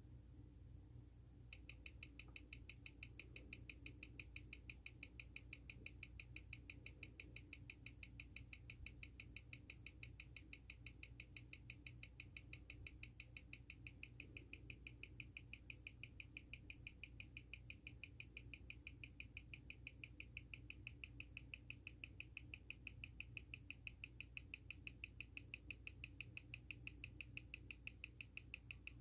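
Seiko SARB035's 6R15 automatic movement ticking on a timegrapher at 21,600 beats per hour, about six faint, even ticks a second, starting about a second and a half in. The timegrapher reads it at about −4 seconds a day with 236° amplitude and 0.1 ms beat error: the watch is running well in this position.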